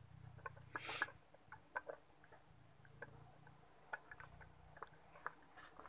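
Faint, scattered light clicks and ticks, with a short rustle about a second in, from small tools and bolts being handled.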